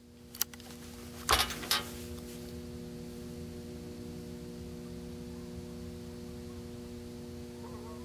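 Handling noise as a break-action rifle is shouldered and settled onto a rest: a couple of sharp knocks about a second and a half in, over a steady low hum.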